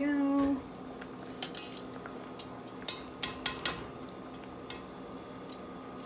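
Metal kitchen tongs clicking and clinking against the sides of a stainless steel saucepan while lifting boiled corn cobs out. The sharp clicks come irregularly, a quick cluster about a second and a half in and single ones after.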